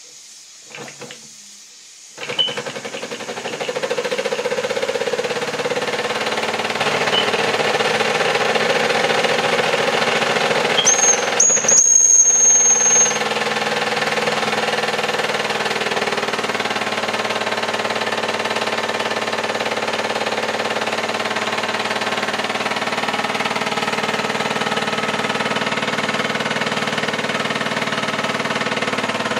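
Model stationary steam engine starting up about two seconds in, then running with a rapid, steady chuffing beat. Its steam whistle gives a high, steady tone for about two seconds midway.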